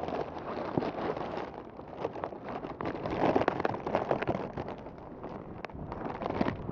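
Wind blowing across a phone's microphone, rising in a gust about halfway through, with a few light clicks.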